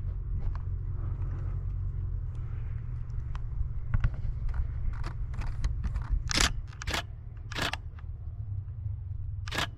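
Canon Rebel T7i DSLR shutter firing single frames: four sharp clicks in the second half, with fainter clicks before them, over a steady low rumble.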